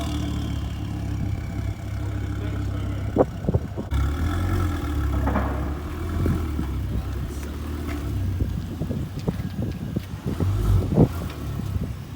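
Mk2 Ford Focus ST's five-cylinder turbo engine running at low revs as the car is moved, with a few knocks and clunks over it.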